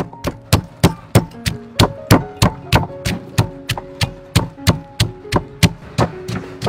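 Wooden pestle pounding fresh red chilies in a wooden mortar: steady, even strikes about three times a second, each a short woody knock. Background music with held notes underneath.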